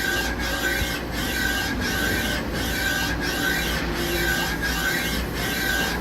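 Z2-axis ball screw and its servo drive on a Star SR-32J Swiss-type CNC lathe traversing forward and backward: a steady rasping whir with a tone that pulses about every two-thirds of a second.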